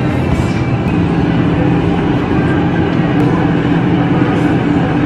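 Metal shopping cart rattling on its wheels as it is pushed over a store floor, heard up close from the cart itself: a steady, loud clattering rumble with a few light clicks.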